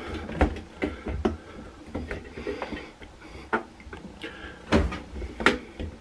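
Rubber door gasket of a front-load washing machine being pressed and tucked back into the plastic lip around the drum by hand: scattered clicks and knocks with rubbing in between.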